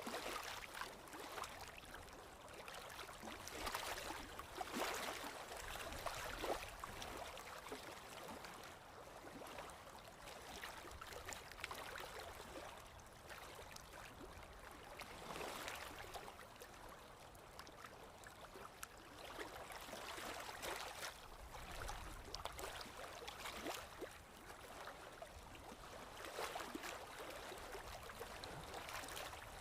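Flowing water, gurgling and splashing with many small droplet ticks, rising and falling in irregular swells.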